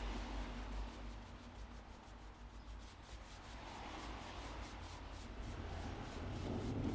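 Flat paintbrush bristles swishing along a wooden tool handle as dark stain is brushed on: a quick run of soft, repeated strokes, with a low rumble building near the end.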